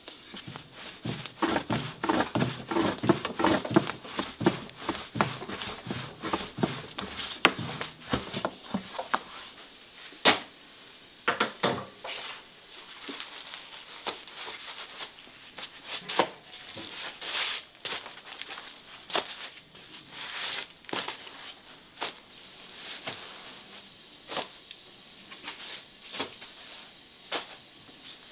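Crinkling, rustling handling noise with many quick clicks, densest in the first eight seconds, then thinning to scattered sharp clicks and taps.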